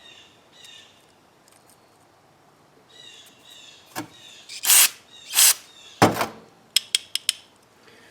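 Carburetor bench work on small parts. There are faint squeaks, then a click, then two short, loud hissing blasts less than a second apart, then a knock, then four quick light clicks.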